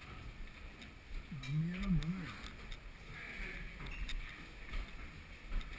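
Footsteps and camera-jostling thumps of climbers on stairwell steps, with scattered knocks and clicks. About a second and a half in comes a brief low vocal sound, a short grunt or hum from one of the climbers.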